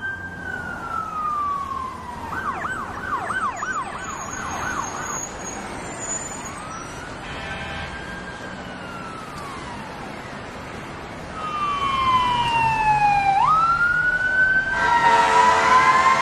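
Emergency-vehicle sirens sounding in changing patterns: a slow falling wail, then a fast yelp for a few seconds, then a slow rising-and-falling wail and another falling wail that jumps back up. Near the end several sirens sound at once and the whole gets louder.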